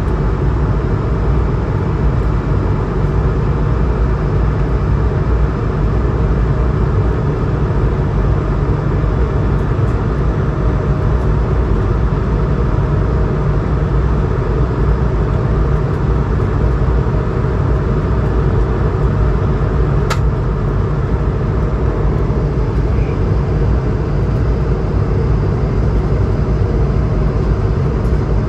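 Steady cabin roar of an Airbus A220-100 climbing after takeoff, from its Pratt & Whitney PW1000G geared turbofan engines and the airflow, with a heavy low rumble and faint steady tones. A brief click about twenty seconds in.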